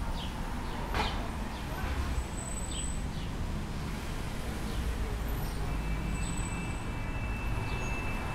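City street ambience: a steady rumble of road traffic, with short bird chirps repeating every half-second or so. A sharp click comes about a second in, and a thin steady tone sounds over the last few seconds.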